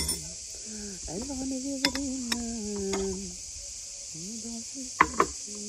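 Steady high-pitched drone of cicadas, with sharp clinks of ceramic crockery: two about two seconds in and two louder ones about five seconds in.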